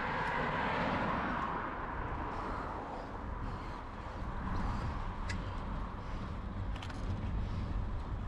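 A car driving past close by, its tyre and engine noise swelling and fading over the first couple of seconds, over the steady low rumble of a bicycle riding on rough tarmac, with a few light clicks later on.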